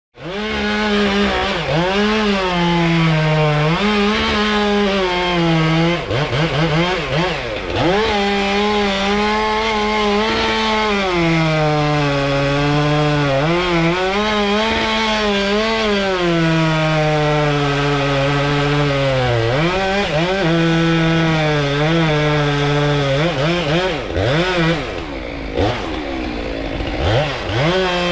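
Stihl MS 193 T top-handle chainsaw running at high revs and cutting wood, its engine pitch sagging and recovering again and again as the chain bites. Near the end the revs fall lower and become uneven.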